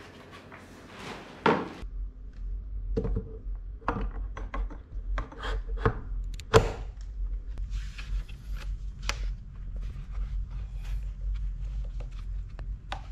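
Plastic and metal toddler-trike parts being handled and fitted together: a string of knocks, clicks and rubbing, with two louder sharp knocks, about a second and a half in and about six and a half seconds in, over a steady low hum.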